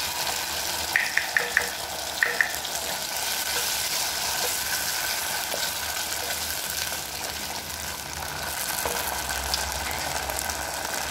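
Garlic, tomato paste and ketchup sizzling steadily in hot oil in a frying pan while being stirred with a wooden spoon. A few sharp clicks come about a second in.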